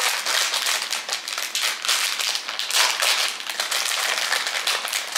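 Plastic snack-packet wrapper crinkling and crackling as it is handled and pulled open by hand.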